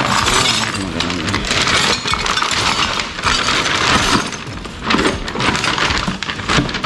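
Small metal motorcycle parts clattering and clinking as they are loaded into a stiff plastic bag, with the bag crinkling.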